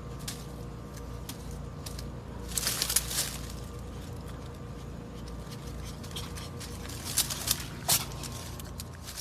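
Leaves rustling and crackling in two short spells, about two and a half seconds in and again near the end, as a cat pushes up into a leafy bush; a steady low hum runs underneath.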